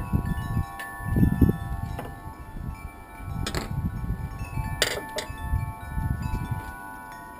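Wind chime ringing, several metal tones overlapping and holding on, over a low uneven rumble. A few sharp clicks come around the middle.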